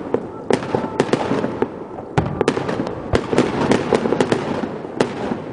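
Fireworks display: one sharp bang after another, several a second at times, over a continuous crackling wash of bursts.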